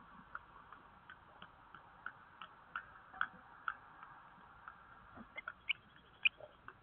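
Soft ticks and taps from a common kestrel moving about on the wood and wood-chip floor of a wooden nest box, about three a second, with a few sharper clicks near the end.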